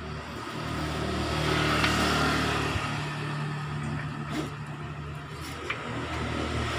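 A motor vehicle engine running, growing louder over the first two seconds and then easing off, with a few faint clicks.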